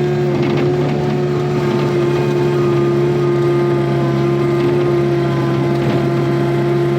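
Takeuchi TB145 compact excavator's diesel engine running steadily under working load, with a few faint knocks.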